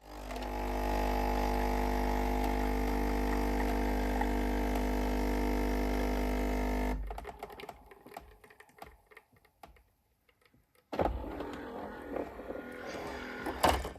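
Coffee machine at work: a motor runs steadily and cuts off sharply about seven seconds in, followed by a few light clicks and then a stretch of uneven, noisier machine sound near the end.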